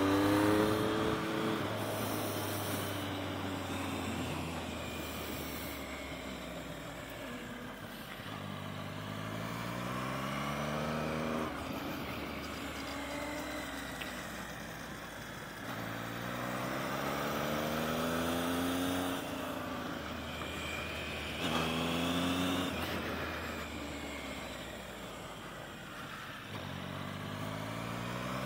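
Motorcycle engine under a rider on a race track, revving up in pitch in repeated surges and dropping off as the throttle closes, with wind rushing over the helmet-mounted camera.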